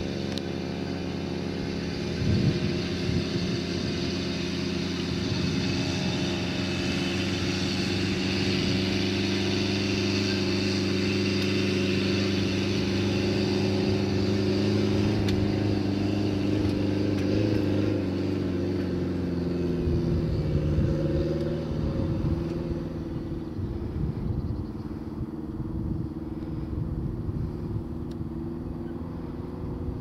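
Engine of a Frazier self-propelled crop sprayer running steadily under way, its pitch sagging slightly about two-thirds of the way through. After that the engine note fades somewhat, leaving a rougher low rumble.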